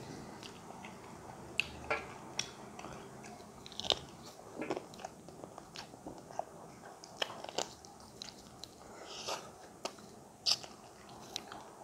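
Close-miked eating: chicken wing bones being gnawed and chewed by mouth, with irregular sharp crunches.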